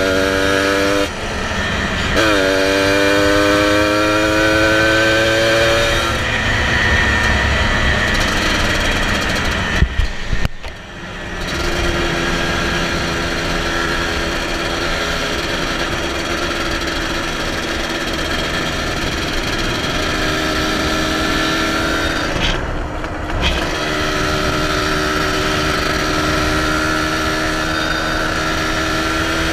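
Single-cylinder sport ATV engine under way on pavement, heard from the rider's seat. The revs climb and fall back through two gear changes in the first few seconds, then settle to a steady cruising note, with brief throttle lifts about ten seconds in and again about twenty-three seconds in.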